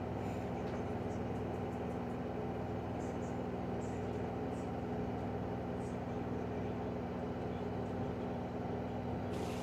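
LG front-loading washing machine in its high-speed spin on a cotton cycle, near 1320 to 1400 rpm, giving a steady hum with several steady low tones. A hiss sets in near the end.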